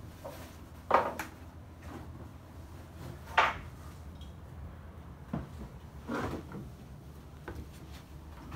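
A few sharp clunks and knocks inside a boat's cabin, the two loudest about a second in and about three and a half seconds in, with softer ones later.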